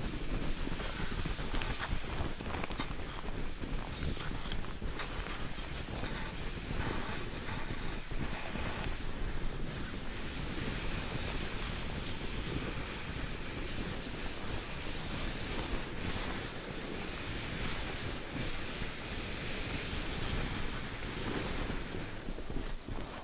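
Wind rushing over the microphone together with skis hissing over snow during a downhill ski run: a steady, full-range rush that eases off near the end.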